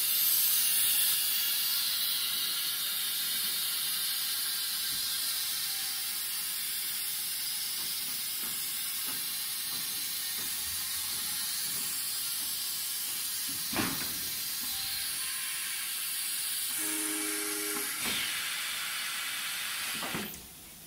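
Steady high air hiss from an automatic-loading CNC router line, with a single knock about fourteen seconds in and a brief pitched tone around seventeen seconds. The hiss stops abruptly about a second before the end.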